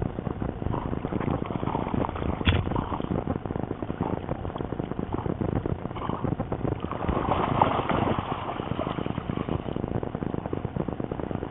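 Water sloshing and splashing around a dog swimming ashore with a stick, busier and louder about seven to eight seconds in as it wades out of the shallows. There is one sharp knock about two and a half seconds in.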